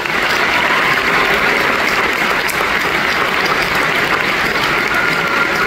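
A large theatre audience applauding steadily, dense and sustained.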